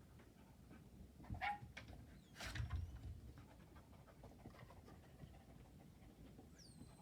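A dog sniffing heavily in quick short bursts while working a scent search, with a louder snort-like burst of breath about two and a half seconds in.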